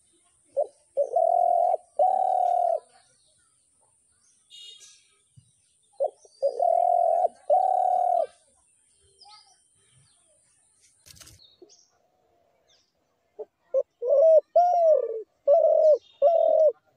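A dove cooing in three phrases. The first two are each a short note followed by two long, low coos; the last is a run of shorter, arched coos. Faint chirps of small birds come in the gaps, and there is a single sharp click midway.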